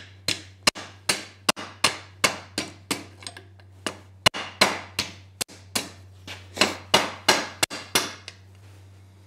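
Red-hot steel ladle handle end being struck with a wooden block against an eye bolt held in a vise, bending it to the curve of the bowl. About twenty quick strikes come roughly three a second, each ringing briefly, with a short pause near the middle, and they stop about a second before the end.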